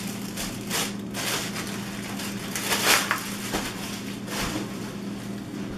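Clear plastic bag crinkling and rustling in irregular bursts as it is pulled off a cordless stick vacuum's main body, the loudest rustle about three seconds in. A steady low hum runs underneath.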